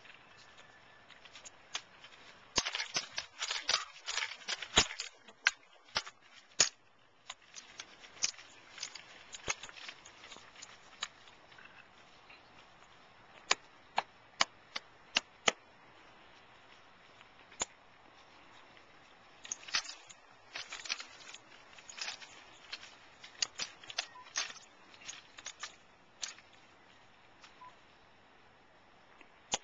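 Rifle drill: sharp slaps and clicks of gloved hands striking and handling drill rifles. They come in quick clusters, with a run of evenly spaced single snaps near the middle, and short quiet gaps between.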